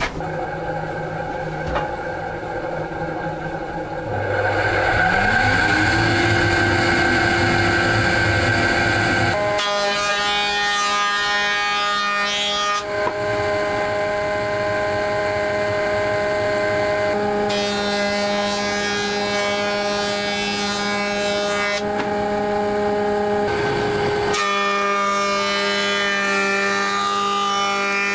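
Planer-thicknesser's electric motor spinning up with a rising whine about four seconds in, then running steadily with a humming drone. Its tone shifts several times as it works.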